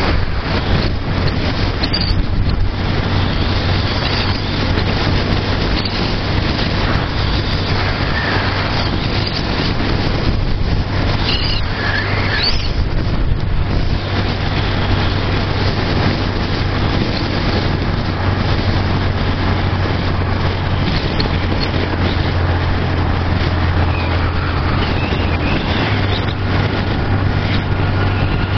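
Honda CG 125 Fan's single-cylinder four-stroke engine running steadily at cruising speed through a Guela aftermarket exhaust with its baffle removed, with wind rushing over the handlebar-mounted microphone.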